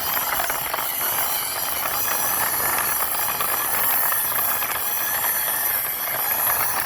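Toy car pushed by hand, its wheels rolling and rattling across the floor in a steady, even run.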